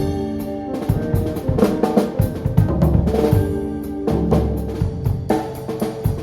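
A live band playing without vocals: a drum kit with kick and snare hits under sustained chords and bass notes.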